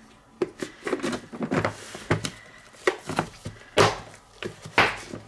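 Plastic salad spinner being handled with its lid on: a string of sharp plastic clicks and knocks, the loudest coming about once a second in the second half.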